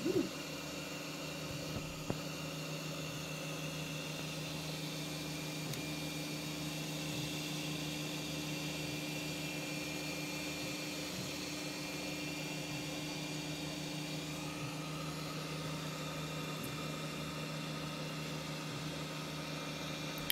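FDM 3D printer running a print: a steady hum from its print-head cooling fan and stepper motors. A higher whine comes in about two-thirds of the way through as the head changes its moves.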